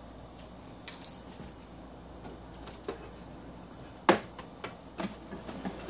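Power cord being handled and plugged into a rack network switch: scattered light clicks and knocks of the plug and cable, the sharpest about four seconds in, followed by a few smaller clicks.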